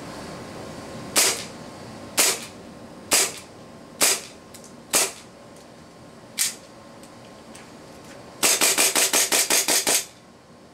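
WE 1911 gas blowback airsoft pistol firing on green gas: single sharp shots about a second apart, then a fast string of about ten shots in a second and a half as the rest of the magazine is emptied.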